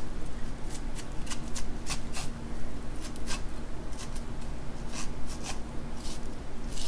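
Handheld corn cutter scraped repeatedly down an ear of sweet corn, stripping kernels and juice off the cob: short, irregular rasping strokes, about two or three a second.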